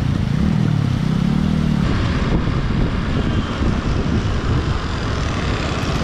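Motorcycle and scooter engines running on the move, the engine note rising and falling over the first two seconds, then a steady rushing rumble.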